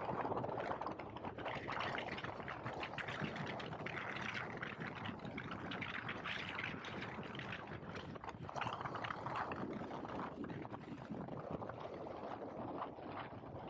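Wind and road noise from a KTM 1290 Super Adventure S on the move: an uneven noise that swells and falls, with no clear engine note.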